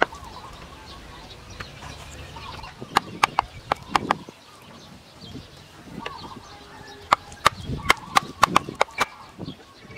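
Sharp knocks of cut bamboo pieces being tapped down into a soil bed, in two quick runs: about five knocks around three to four seconds in, and about eight more between seven and nine seconds in. Birds call faintly in the background.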